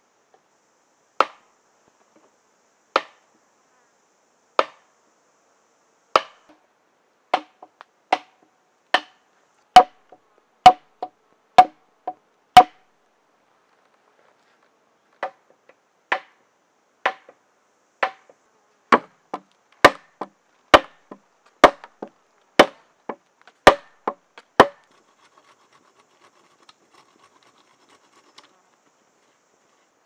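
Hard wooden knocks, a stick striking a frame of thin wooden poles: single blows a second or two apart that quicken into runs of about one a second, with a pause of a couple of seconds partway, about two dozen knocks in all. Faint rustling follows once the knocking stops near the end.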